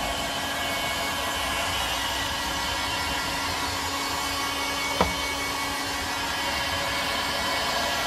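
Ozito handheld hot-air blower running steadily, a rush of air over a constant motor hum, as it heats a fridge door's rubber seal to soften it. A single sharp click about five seconds in.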